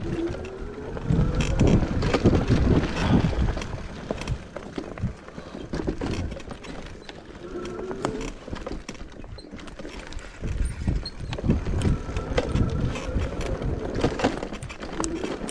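Mountain bike ridden over a rough, rooty trail: the bike rattles and clatters over bumps, with wind buffeting the microphone. A short rising whine comes through a few times.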